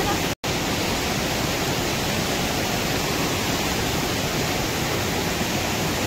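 Steady, loud rush of a mountain waterfall and the stream below it, cutting out for a split second about half a second in.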